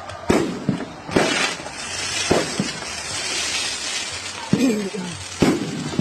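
Aerial fireworks bursting: five sharp bangs at uneven intervals, with steady crackling between them.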